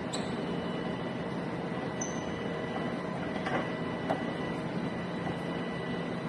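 A steady machine hum with a faint high whine, and a couple of light clicks or taps about three and a half and four seconds in.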